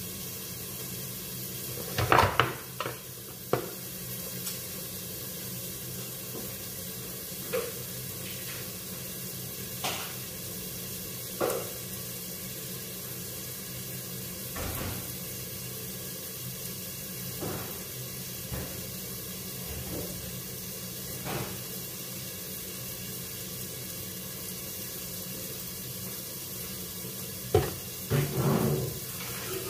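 Bitter gourd and egg frying in a covered pan on a gas burner: a steady soft sizzle with a low hum under it, broken by scattered light knocks. Near the end comes a short run of louder clatter from the cook's utensils.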